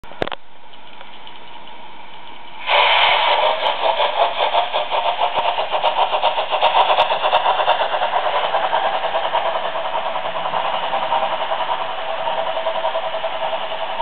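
Digital sound decoder of a Märklin BR 10 model steam locomotive, heard through its small onboard speaker: a steady low hiss, then about three seconds in a loud, rapid, rhythmic steam chuffing starts abruptly and keeps going. From about ten seconds in, steady tones sound under the chuffing.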